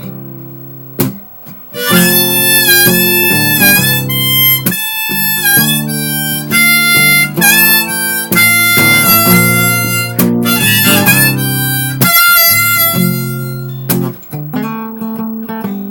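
Harmonica solo with bending notes over strummed acoustic guitar, in a country-blues instrumental break; the harmonica comes in about two seconds in.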